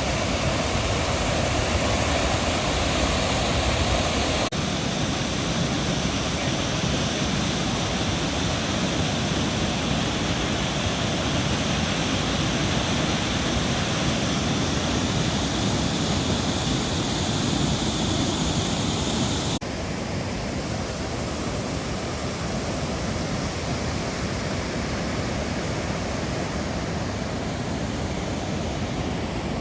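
Athirappilly Falls in rainy-season flood: a large waterfall giving a steady, loud rush of falling water. The sound changes abruptly twice, about four and a half seconds and twenty seconds in, and is a little quieter after the second change.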